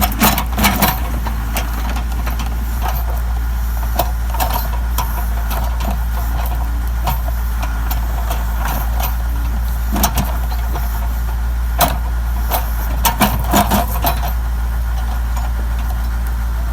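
Backhoe's diesel engine running steadily, with sharp knocks and cracks now and then, in clusters near the start and about three quarters of the way through.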